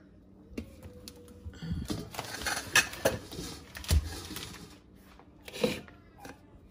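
Kitchen handling noises: a plastic zip-top bag rustling and a plastic storage container and lid clattering on a countertop, with a sharp knock about four seconds in. Near the end there is a lighter knock as two sticks of butter are set into a mixing bowl.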